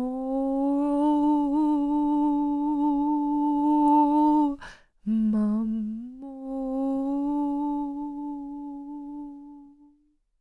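A woman singing alone in two long held notes. Each note slides up into a steady pitch, with a breath between them about halfway through. The second note fades out near the end.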